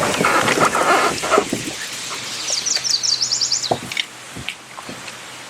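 Loud rustling and clattering of handling, then a short bird trill of quick repeated high notes about two and a half seconds in, with quieter outdoor background after.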